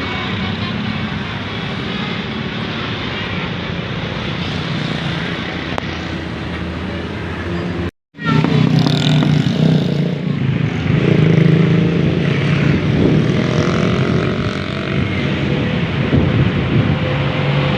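Large buses running and passing on a road, with steady engine and road noise. The sound cuts off abruptly about eight seconds in and resumes louder, with a bus engine's steady drone.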